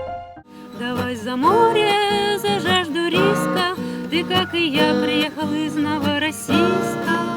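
Background music: a soft instrumental track breaks off about half a second in, and a song with a singing voice and accompaniment begins.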